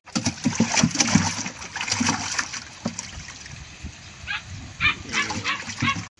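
A freshly caught red-bellied pacu thrashing in a water-filled, cut-open plastic jerrycan: a rapid run of splashes and slaps against water and plastic, densest in the first two seconds, with another flurry about four seconds in.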